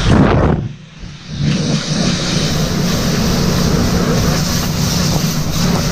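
Pressure washer at work: a steady engine drone under the hiss of the high-pressure spray, dipping briefly about a second in.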